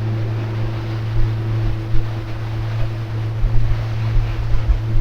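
Boat engine running steadily underway with a constant low hum, under a rush of wind and water. Gusts of wind buffet the microphone with irregular low thumps.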